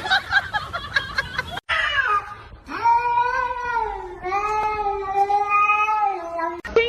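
A cat yowling: two long drawn-out yowls, the second longer than the first, each holding a fairly steady pitch. Before them comes about a second and a half of jumbled noise.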